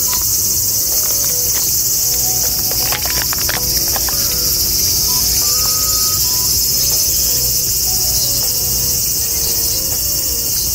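Steady, high insect chorus, with a few faint clicks about three seconds in.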